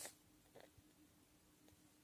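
Near silence: room tone with a faint steady hum and one faint short sound about half a second in.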